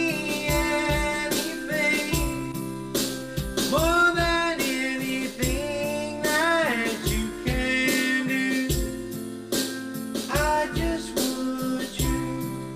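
Christian worship song playing: a singer over guitar and other instruments, with a steady drum beat.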